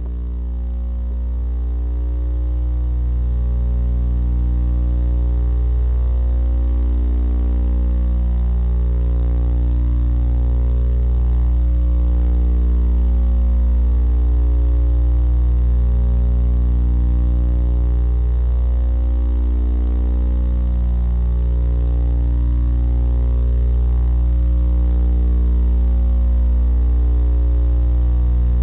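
A steady low drone with many overtones, swelling in over the first few seconds and then holding, with a slow pulse about every four seconds.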